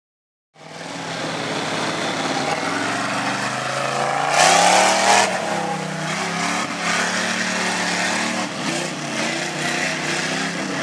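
Lifted Chevy pickup's 350 V8 running hard under load as its tractor tires churn through deep mud, engine pitch rising and falling. It starts about half a second in, with a louder surge just past four seconds.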